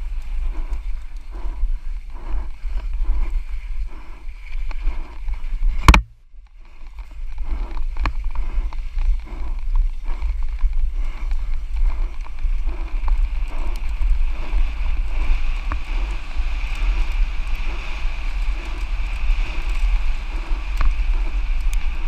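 Mountain bike descending a dirt trail at speed: wind rushing over the camera microphone and tyres rolling over the ground, with one sharp loud jolt about six seconds in.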